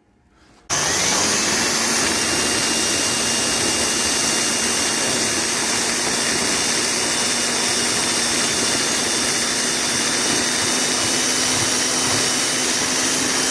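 Electric drill with a rounded tip starting up under a second in, its pitch rising briefly, then running at a steady speed with an even whine, used to grind away body filler and rust.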